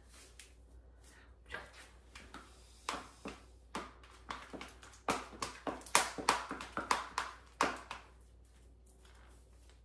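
Irregular light clicks, taps and rustles, busiest and loudest about five to eight seconds in, from a white ribbon-strapped stiletto heel being tied on and shifted about on a ceramic tile floor.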